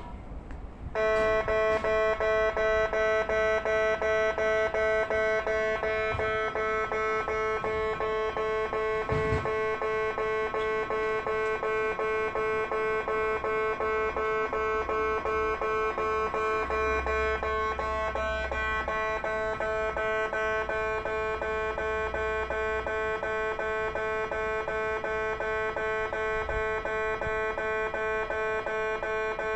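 Electronic warning bell of a Japanese railway level crossing, ringing a steady, rapidly repeated two-tone ding that starts about a second in. It is the crossing's warning that a train is approaching.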